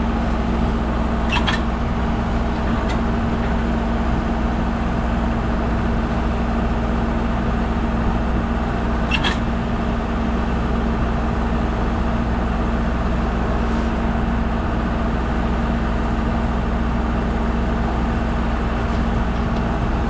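Tractor engine running at a steady speed, driving the sawmill through its PTO. The drone holds an even pitch, with two short sharp clicks about a second and a half in and about nine seconds in.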